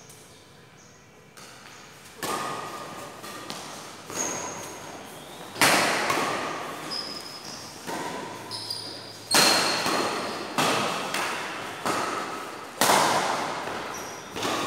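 Badminton rackets striking a shuttlecock in a fast doubles rally: sharp cracks about once a second, echoing in a large hall, the hardest hits coming about five and a half, nine and a half and thirteen seconds in. A few short high squeaks come between the hits.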